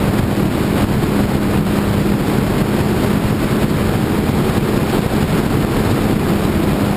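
Motorcycle engine running at a steady cruise, a constant drone holding one pitch, mixed with wind buffeting the microphone and road rumble.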